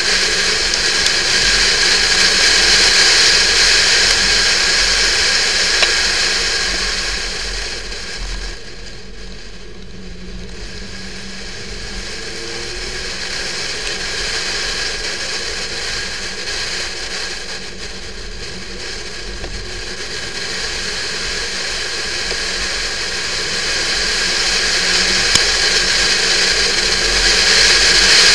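Porsche 911 (996) driving at speed, heard mostly as wind rushing over the camera's microphone, with road and engine noise underneath. The rush eases about nine seconds in and again at about eighteen seconds as the car slows, then builds near the end as it speeds up.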